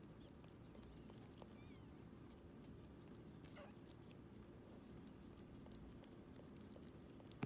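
Faint wet clicking and chewing as a toy poodle mother bites at her newborn puppy's umbilical cord, with a couple of faint high squeaks from the newborn puppy, about a second and a half and three and a half seconds in. A low steady hum sits underneath.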